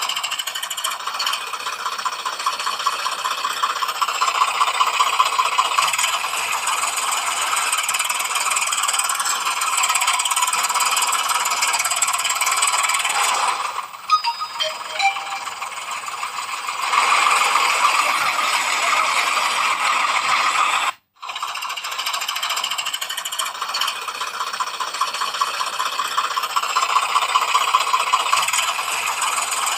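A battery-powered toy's small motor and plastic gears whirring with a rapid, steady rattle. It drops away for a few seconds about halfway through and stops for a moment near the two-thirds mark.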